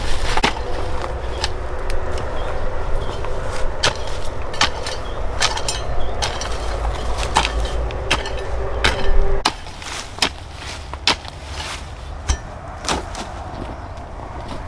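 Repeated sharp knocks, about one or two a second, over a low motor hum with a steady tone. The hum cuts off about two-thirds of the way through, leaving only the knocks.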